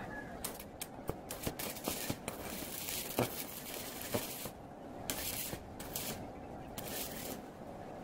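Stick (arc) welder tack-welding steel tubing: the arc crackles and sizzles in bursts, the longest lasting about four seconds, with a few sharp clicks among them.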